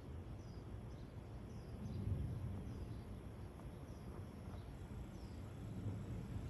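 Low, steady outdoor background rumble with faint, short, high chirps about once a second.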